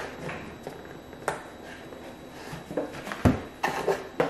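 Paper flash cards and a cardboard box being handled: a few short rustles and light knocks, with the loudest, deepest thump about three seconds in as a stack of cards is set down on the wooden table.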